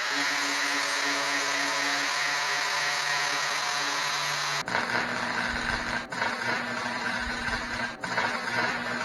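MIG welder running continuous beads on sheet-metal truck cabs, a steady dense hiss and buzz that shifts in character about halfway through and breaks off briefly twice near the end.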